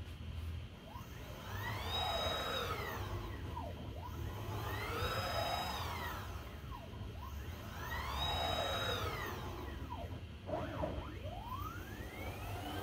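Pilot Pro V4 CNC router's axis drive motors making rapid gantry moves: a whine that rises in pitch as each move speeds up, holds, then falls as it slows, about every three seconds, with a few shorter, quicker moves near the end.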